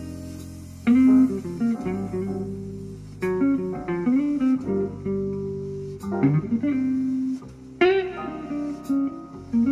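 Recorded jazz guitar music played back on a home stereo system: plucked guitar lines over a low bass line, with sharp note attacks every couple of seconds.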